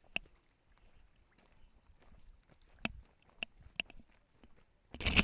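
Footsteps on a rocky hiking trail: a few sharp clicks of stones underfoot, spaced out, then a louder crunching scuff near the end.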